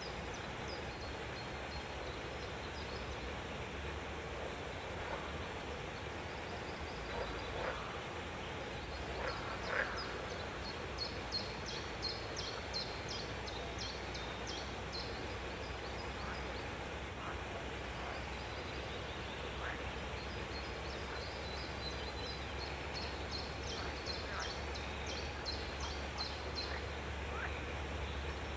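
Birds calling in an exotic-bird aviary: two long runs of rapid, repeated high chattering notes, each lasting several seconds, with a few scattered short chirps, over a steady low background hum.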